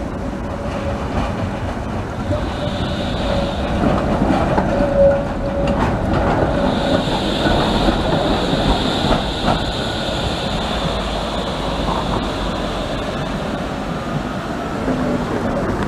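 Electric tram passing close on a curve: low running rumble of wheels on rails, with a high thin wheel squeal coming in about two seconds in and again from about six to eleven seconds, loudest in the middle. A second tram runs past on straight track near the end.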